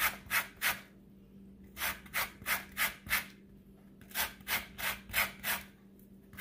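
Orange peel being zested on a long metal rasp grater: quick scraping strokes, about three or four a second, in three runs with short pauses between. A faint steady hum sits underneath.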